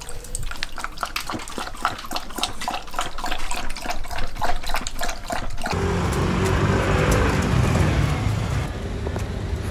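A border collie lapping water from a stainless steel bowl: quick, rhythmic wet laps of the tongue. About six seconds in this gives way suddenly to a steady background hum with music.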